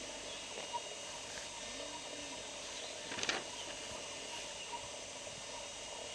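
Steady outdoor background hiss with faint high steady tones, broken about three seconds in by one short, noisy burst.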